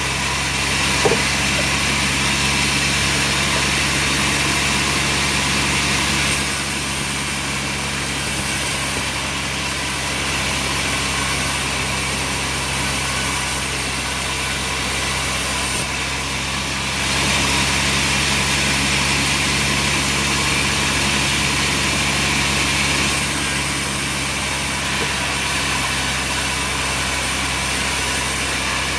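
Sawmill machinery running steadily: a motor drone with a low hum and a broad hiss. The hiss steps louder and quieter a few times, and there is one short click about a second in.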